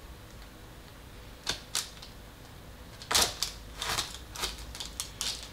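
A knife cutting into a frozen, white-chocolate-coated mango yogurt bite on a small board: two sharp clicks about a second and a half in, then a quick run of clicks from about three seconds in.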